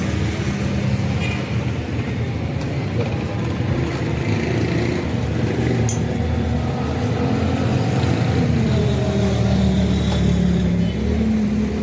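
A motor vehicle's engine running steadily, with road traffic noise around it; its pitch rises slightly near the end.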